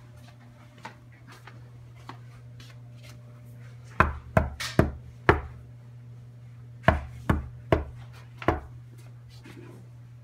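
Knocking on a door: four quick knocks about four seconds in, then four more about three seconds later, over a steady low hum.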